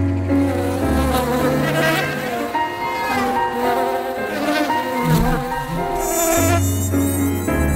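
Buzzing of flying insects, wavering up and down in pitch, over background music with low sustained notes.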